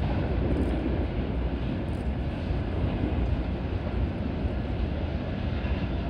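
New York City subway train running with a steady rumble, even and unbroken throughout.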